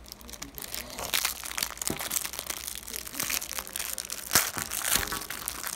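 Clear plastic wrapper of a pack of baseball cards crinkling and crackling as it is handled and pulled open, with one sharper, louder crackle about four seconds in.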